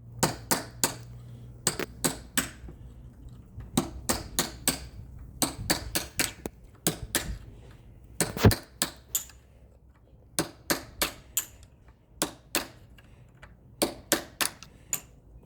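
Hammer blows struck in quick runs of three or four, with short pauses between runs and one heavier blow about eight and a half seconds in.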